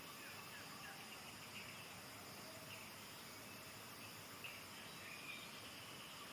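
Faint outdoor ambience: a steady high insect drone with a few brief, soft bird chirps scattered through it.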